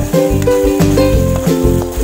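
Background music: a melody of short pitched notes over a steady beat.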